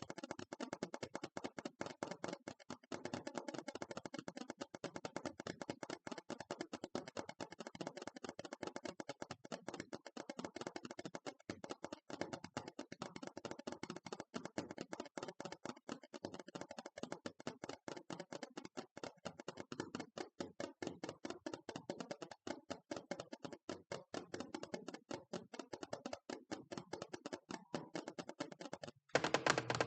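Fast, continuous tapping on a hard object, many taps a second, growing louder about a second before the end.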